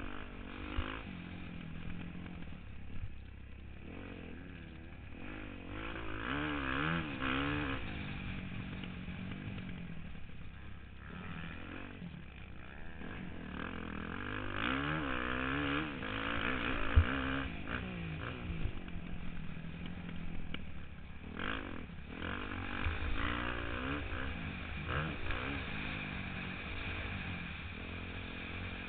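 Motocross dirt bike engine under hard riding, heard from the rider's helmet: the revs rise and fall again and again as the throttle is worked and gears change. A few sharp knocks come through, the loudest about two-thirds of the way through.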